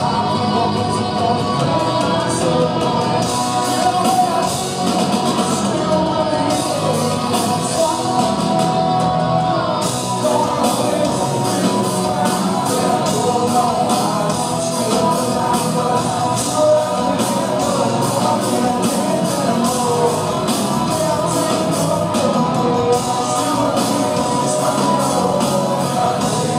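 Live rock band playing: a male lead vocalist singing over electric guitar and a drum kit, loud and continuous with steady drum hits.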